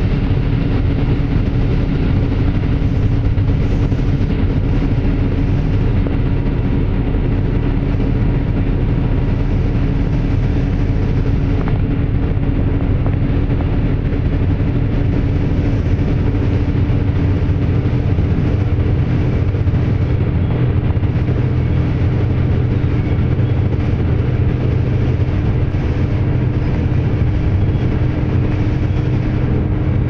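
Steady engine drone and road rumble of a moving vehicle heard from inside the cabin, with a constant low hum that does not change.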